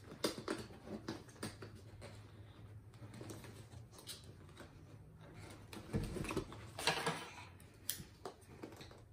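Handling noise of a small plush toy being worked out of a cardboard advent-calendar compartment: cardboard and plastic packaging rustling and scraping in short, irregular bursts, loudest about six to seven seconds in.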